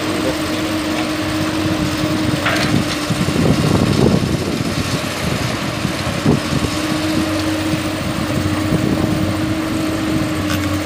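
Komatsu PC200 hydraulic excavator's diesel engine running steadily at work. It gets louder and rougher for a few seconds about three seconds in, and there is a single short knock about six seconds in.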